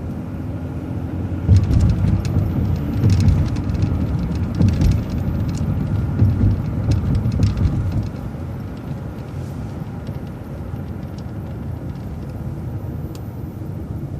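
City transit bus driving, with a steady low engine and road rumble. From about a second and a half in until about eight seconds it is louder and uneven, with scattered rattles and clicks as the bus works through a roundabout, then it settles back to an even rumble.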